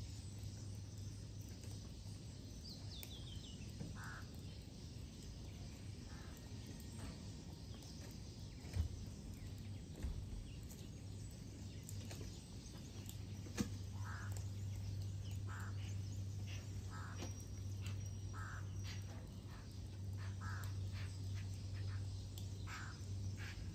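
Birds calling outdoors in short, harsh repeated calls: a few early on, then one every second or two in the second half, with one brief high falling chirp near the start. A steady low hum runs underneath, and a couple of sharp knocks come in the middle.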